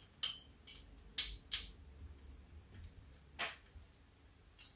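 A few light clicks and taps of small metal bolts, nuts and a hex driver being handled while fitting a model helicopter's rotor head-block bolts; the sharpest click comes about three and a half seconds in.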